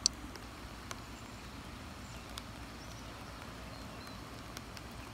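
Steady patter of light rain, with a few sharp drips tapping close by, the loudest right at the start.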